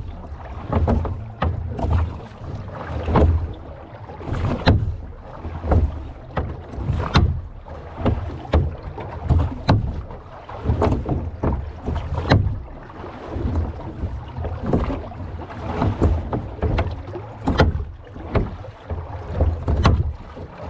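Rowboat being rowed with a pair of oars: a knock from the oarlocks and a splash at each stroke, about one stroke every 1.3 seconds, over a low rumble of water.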